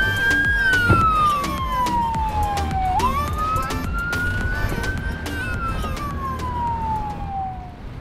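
Patrol boat's siren wailing: a slow rise and fall in pitch, twice, over the low rumble of the boat running at speed. The siren stops near the end.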